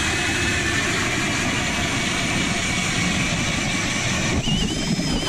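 Cordless-drill-powered ice auger boring through lake ice: a steady motor whine that sinks slowly in pitch as the bit cuts, then wavers and sits a little higher near the end.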